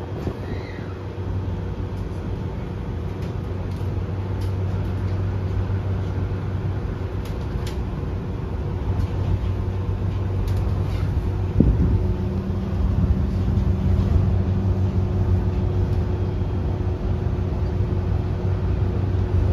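Tokyo Monorail 10000 series car running, heard from inside the cabin: a steady rumble with low humming tones, a few faint clicks and a short knock about twelve seconds in.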